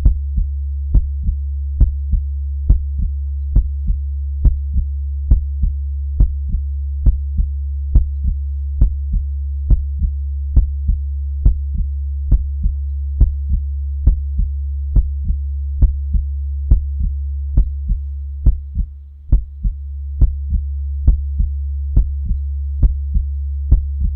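Heartbeat sounds beating slowly and steadily at about seventy beats a minute, each strong beat followed by a softer one, over a continuous low hum. The hum fades down and back up about nineteen seconds in.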